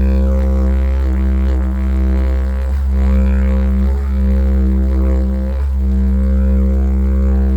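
Didgeridoo playing a continuous low drone, its tone swept by changing mouth shapes, with brief dips in the drone about every second and a half.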